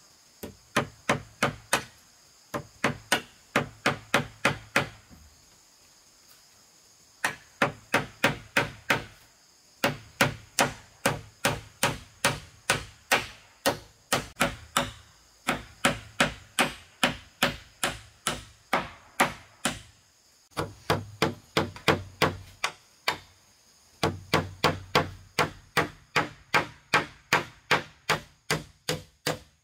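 Rapid, sharp blows from a hand tool striking repeatedly, about four a second, in runs of a few seconds separated by short pauses.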